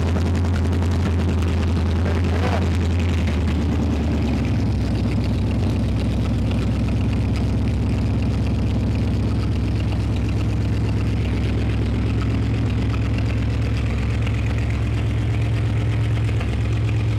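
Ford flathead V8 with a four-barrel Holley carburettor and headers, running steadily at idle. Its speed steps up slightly about four and a half seconds in.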